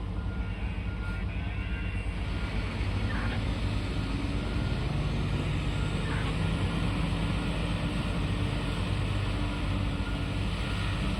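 Heavy diesel mining machinery running steadily, with a deep drone. It grows louder and hissier about two seconds in, and the engine note rises briefly in the middle, as under load.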